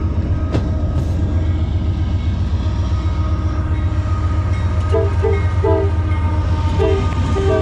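Train passing with a steady low rumble, its horn giving a string of short honks from about five seconds in.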